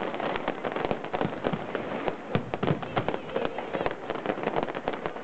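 Fireworks going off: a rapid, dense run of sharp pops and bangs, many a second.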